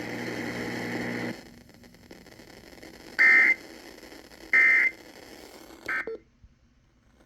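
Emergency Alert System end-of-message data tones: three short bursts of warbling digital header tone, the last one briefer, marking the end of the warning. Before them a steady broadcast hum cuts off just over a second in.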